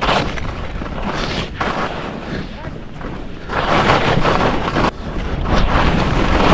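Skis scraping and chattering over firm, chopped-up snow during a fast descent, mixed with wind rushing over the microphone. The noise swells louder about halfway through and again near the end, as the skis bite into turns.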